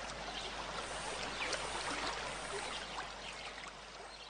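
Faint, steady hiss-like noise with small scattered crackles, fading out near the end.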